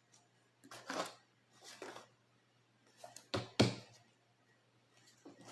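Cards being handled on a table: four short rustling taps, the loudest, with a dull knock, about three and a half seconds in.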